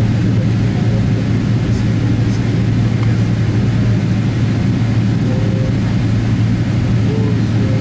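Steady low drone of a jet airliner on the ground at the airport: an unbroken hum under a wash of noise.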